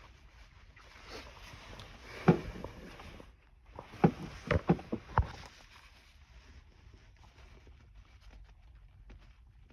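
A person sneezing in an induced fit: one harsh sneeze a little after two seconds in, then a quick run of four sharp sneezing bursts between about four and five and a half seconds.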